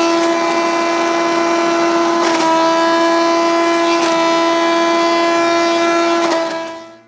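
Hammer-mill shredder running steadily with a strong, even whine, a few sharp knocks as material goes through and a brief dip in pitch about two seconds in, fading out near the end.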